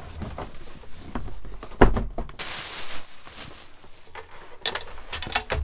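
Handling noise as a boxed air purifier is lifted out of its cardboard box and unwrapped: a sharp knock about two seconds in, a brief rustle of plastic wrapping just after, and a few lighter knocks near the end as it is set down.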